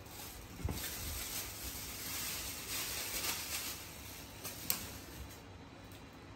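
Thin plastic bag rustling and crinkling as it is handled, for about five seconds, with a soft knock near the start and a sharp click later on.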